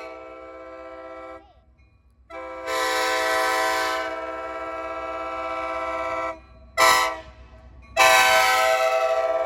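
Multi-chime train horn blowing a chord in blasts. One blast ends early on; after a short gap come a long blast, a short one and another long one, the long-long-short-long grade-crossing signal.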